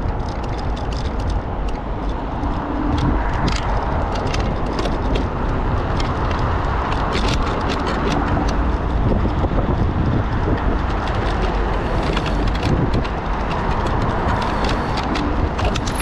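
Off-road vehicle driving over rough ground: a steady, loud rumble of engine and running gear, with many sharp clicks and crackles scattered throughout.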